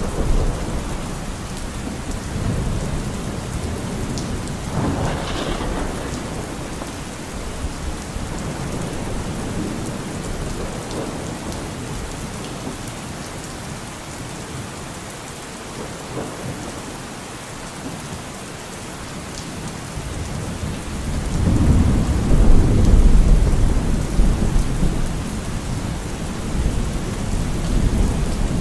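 Steady rain falling in a thunderstorm, with a short crack of thunder about five seconds in and a long, louder low rumble of thunder rolling in about two-thirds of the way through.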